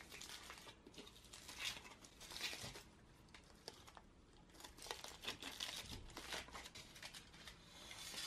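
Aluminium foil crinkling and rustling as it is peeled and unwrapped from around a small round metal cake tin, in several bouts with short pauses between them.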